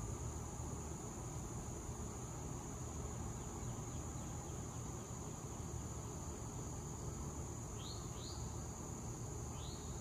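Steady high-pitched drone of insects such as crickets over a low steady rumble. Near the end a small bird gives three short rising chirps, two close together and then one more.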